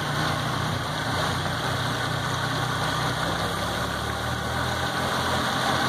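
Yamaha F250 V6 four-stroke outboard, cowling off, idling steadily in forward gear with the propeller churning the water. It is running on all cylinders again after water was flushed out of its fuel injection system.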